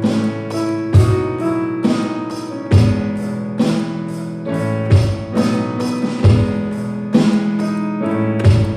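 Music: a song with guitar and piano chords over a drum beat, with strong accented hits about once a second.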